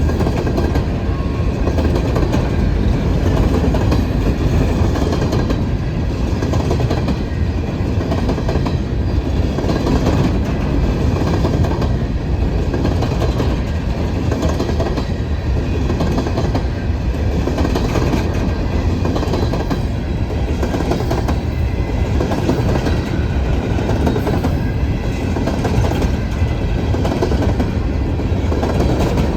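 Coal hopper cars of a long freight train rolling past, a steady rumble with wheels clacking over rail joints at a regular rhythm.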